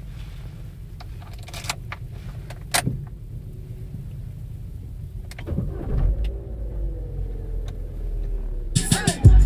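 Opel Corsa D 1.4 petrol engine with a steady low rumble and a few clicks. About halfway through it comes up louder, its pitch slowly shifting. Music with scratching sets in just before the end.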